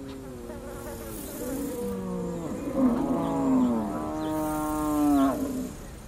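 Cattle lowing: several long, drawn-out moos one after another, the last and longest ending near the end.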